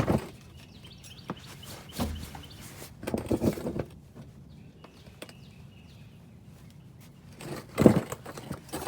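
A few short bursts of metallic clinking and knocking from hand tools working a rear strut's mounting bolt loose. The loudest burst comes near the end, with a faint chirp in the quiet stretch mid-way.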